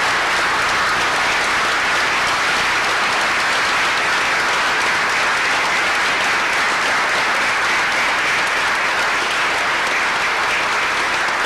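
Audience applauding, many hands clapping at a steady, even level.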